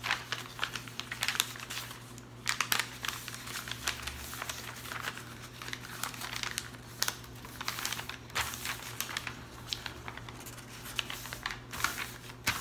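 A sheet of paper being folded and creased by hand into a paper airplane: irregular rustling and crinkling in short bursts, over a steady low hum.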